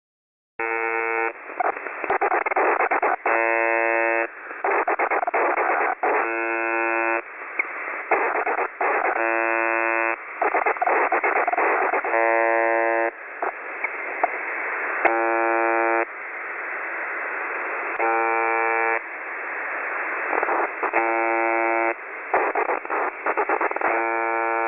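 UVB-76 ('The Buzzer') shortwave transmission heard through a radio receiver: a harsh buzz tone about a second long repeats roughly every three seconds, with rough hissing noise filling the gaps between buzzes.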